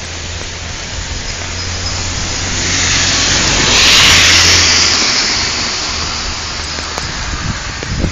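A car passing on a wet road: the hiss of its tyres on the wet tarmac swells to a peak about four seconds in and fades again, over steady rain.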